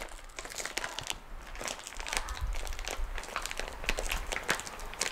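Plastic Milo powder bag crinkling as it is handled, a run of irregular crackles.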